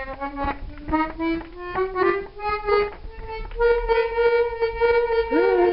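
Tosca accordion being played in a test: a run of short notes steps upward, then one note is held. The instrument is out of tune and still needs its reeds tuned.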